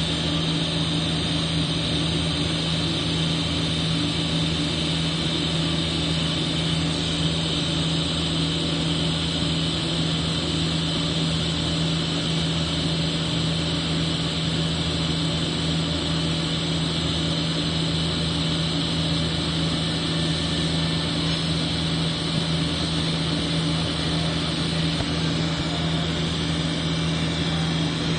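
TIG welding arc running steadily: an even buzzing hum with a hiss, unbroken throughout.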